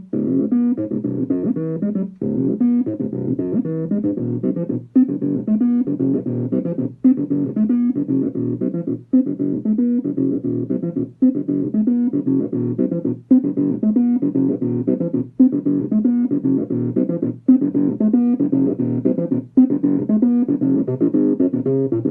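Behringer TD-3, a TB-303-style analog bass synthesizer, playing a sequenced bassline of quick notes that loops, the pattern repeating about every two seconds.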